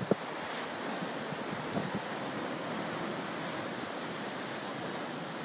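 Rough storm surf surging and breaking against a rock revetment: a steady, unbroken rush of waves.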